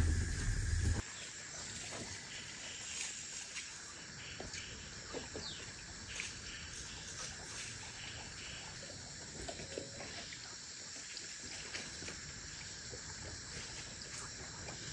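Wood fire on an open hearth, a low rumble with crackles, cutting off abruptly about a second in. Then faint outdoor ambience: a steady chorus of insects with a few short bird chirps and scattered faint clicks.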